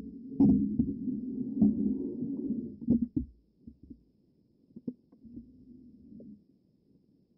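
Muffled underwater sound through an action camera's waterproof housing: a low rumble of moving water with several knocks, loudest over the first three seconds, then fainter with a few scattered taps.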